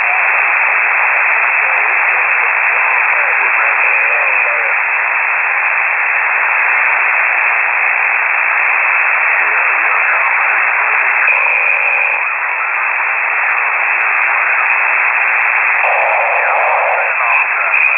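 Shortwave radio receiver output in single-sideband voice mode: steady static hiss squeezed into a narrow voice passband, with faint, unreadable traces of voices buried under the noise.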